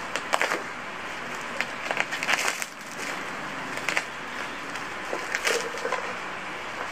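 Plastic wrapping being torn and crinkled off a plastic tumbler by hand: irregular rustling and crackling, with several sharp crackles scattered through it.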